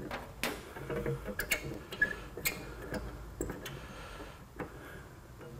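Light, irregular clicks and ticks of a car antenna mast being threaded by hand into its base, metal catching on metal.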